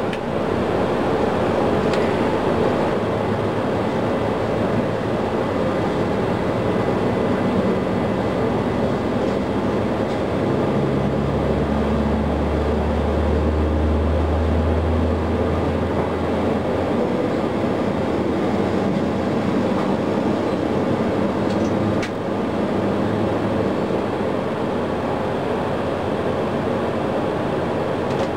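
Steady roar of Boeing 737 jet engines as heard from the flight deck, with engine 1 being turned by its starter and the other engine running. Engine 1 does not light: this is the sound of a no-ignition start. A deeper hum comes in for a few seconds partway through, and there is a sharp click about two-thirds of the way in.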